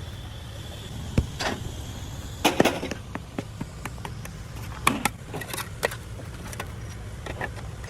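Steady low machine hum with scattered sharp knocks and clicks, the loudest about a second in, at two and a half seconds and at five seconds.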